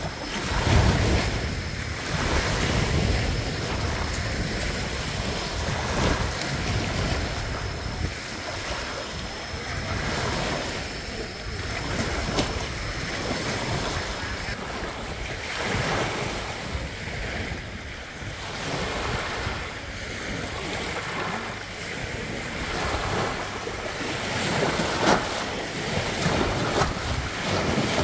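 Small waves breaking and washing up a sandy beach, the surf swelling and falling back every few seconds.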